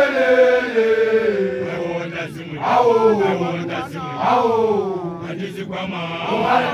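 Large group of men chanting together in long held phrases that slide downward in pitch, with a fresh phrase rising in roughly every one and a half to two seconds.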